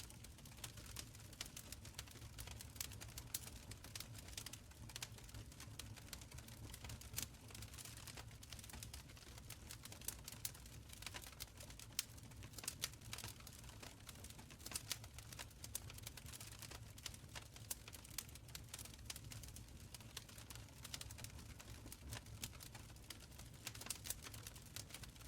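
Open fire crackling in a fireplace: irregular small pops and snaps, several a second, over a faint low rumble of the burning.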